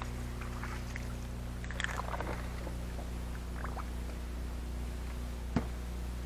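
Small bass splashing at the surface about two seconds in as it is swung up on a flipping rod, over the steady low hum of the bass boat's electric trolling motor. A single sharp knock comes near the end.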